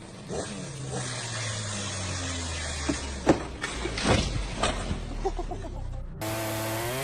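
A low engine running steadily, with a few sharp knocks or cracks around the middle; near the end the sound cuts to a higher engine note that rises and falls.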